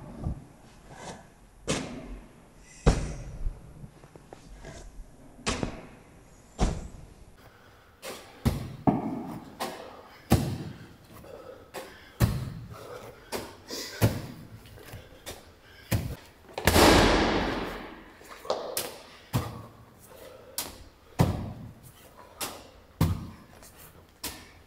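Repeated heavy thuds of a gym workout, one every one to two seconds, with a longer, louder rushing noise about 17 seconds in.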